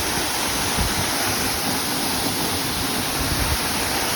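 Waterfall running hard: a steady, loud rush of falling water.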